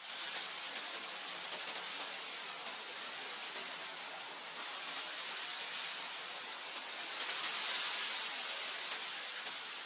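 Wind blowing in a steady airy rush that swells about three-quarters of the way through.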